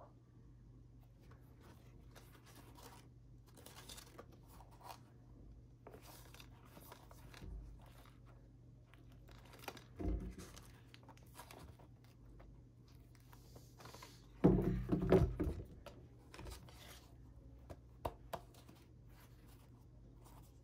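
Handling noises: intermittent rustling and crinkling with small clicks, a thump about ten seconds in and a cluster of louder thumps about fifteen seconds in, over a low steady hum.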